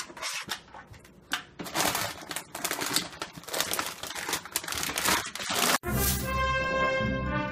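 Irregular crinkling and rustling of plastic packaging as a puppy paws through the bags and boxes on a pantry shelf. About six seconds in, it cuts off abruptly and brass music takes over.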